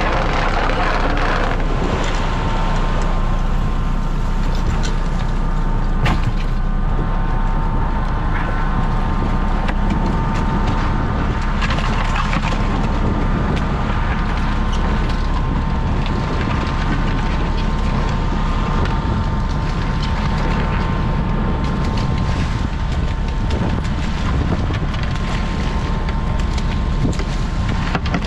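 Crab boat's engine and hydraulic pot hauler running steadily under wind and sea noise while a crab pot is hauled. A steady whine sits over a low hum, with occasional knocks from the gear.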